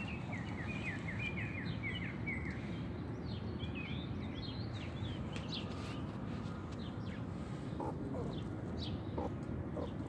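Baby grey squirrel giving a quick run of short, high chirping squeaks, several a second, then a few scattered chirps. A few soft rustles come near the end.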